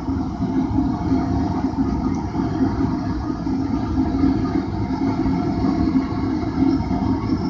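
Forge running with a steady rumble and a constant low hum, as a steel blade heats past non-magnetic for the hardening quench.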